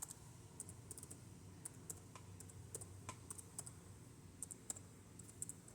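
Faint typing on a computer keyboard: light, irregular key clicks.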